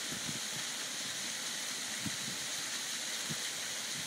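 Fountain water splashing steadily into its basin, an even rushing hiss.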